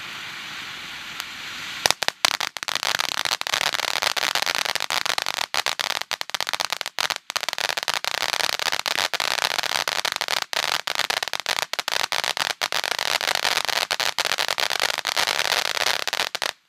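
Red Rhino Twilight Fright 500 g firework fountain spraying with a steady hiss, then about two seconds in breaking into loud, dense crackling that goes on without a break until it cuts off suddenly near the end.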